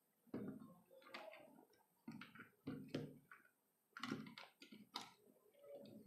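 Faint, irregular clicks and light knocks from a plastic-framed CPU cooler being handled just after it has been pulled off the motherboard.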